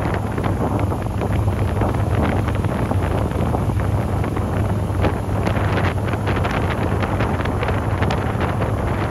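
Boat under way: the steady low hum of its motor under heavy wind buffeting on the microphone and the rush of water past the hull.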